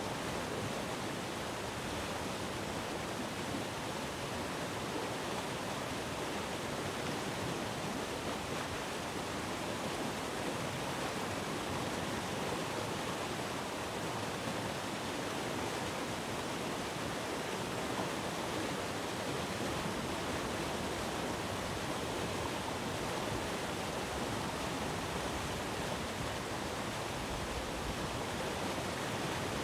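Steady, even rush of sea surf, with no separate wave breaks standing out.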